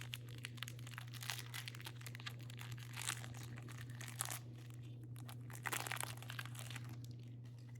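Plastic wrapper of a baseball card hanger pack being torn open and crinkled as the cards are pulled out, over a steady low hum.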